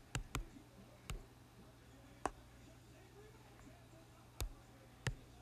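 Key taps on an iPad's on-screen keyboard: six separate sharp clicks at an uneven typing pace, over a faint steady low hum.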